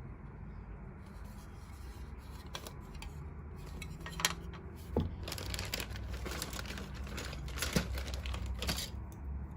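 Plastic parts bag crinkling and plastic model-kit parts trees clicking as they are handled: a few light clicks at first, then steady crinkling from about halfway through.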